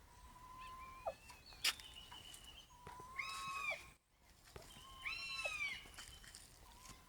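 Crested hawk-eagle calling in shrill whistles: a held whistle that drops sharply at its end, and two loud arching, ringing cries a couple of seconds apart. A few sharp clicks come in the first two seconds.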